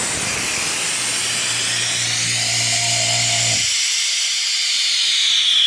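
Air hissing steadily into a vacuum degassing chamber as the vacuum is released, over the hum of the vacuum pump motor. The pump hum cuts off a little past halfway while the hiss of the inrushing air carries on.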